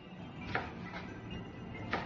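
Kitchen knife chopping carrots on a plastic cutting board: two chops about a second and a half apart, over quiet background music.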